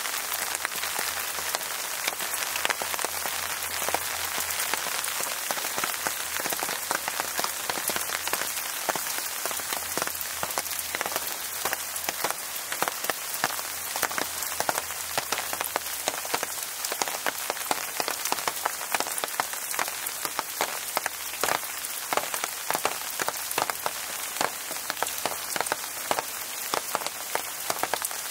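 Steady rain falling, with many single drops landing as sharp ticks over the hiss, more of them from about a third of the way in.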